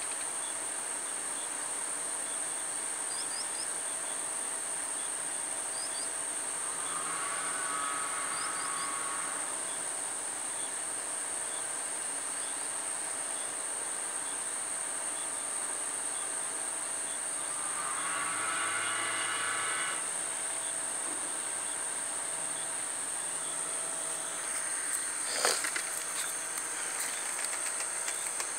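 Insects in the grass trilling steadily at a high pitch, with a few faint bird chirps. Twice a fainter, several-toned mechanical hum swells for a couple of seconds, and near the end there is a sharp knock.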